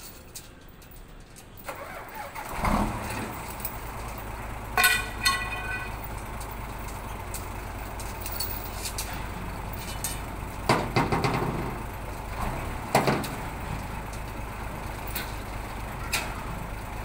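A heavy engine starts up about two and a half seconds in and then runs steadily. Sharp metal clanks come around eleven and thirteen seconds, as lifting chains are handled against a bundle of steel bars, and a brief pitched sound is heard near five seconds.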